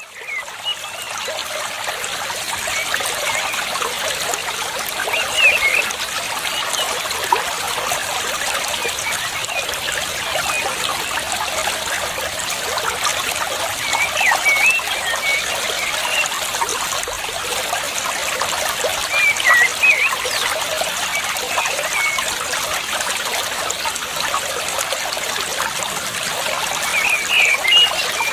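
Water trickling steadily, with a bird's short chirps breaking in four times.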